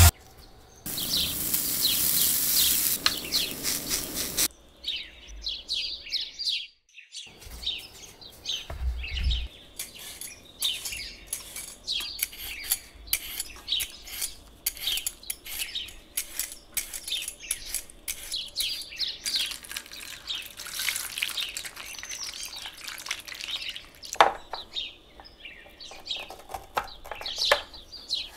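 Metal Y-peeler scraping the skin off a raw potato in quick, crisp repeated strokes, about two or three a second, with a squeaky edge to each stroke. For the first few seconds a louder steady rasping noise plays, and a single sharp click comes near the end.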